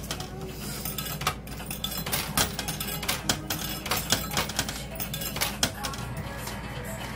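Quarters clinking in a coin pusher machine, coins dropping onto the piles and knocking against each other in irregular sharp clicks, several a second. A steady low hum runs underneath.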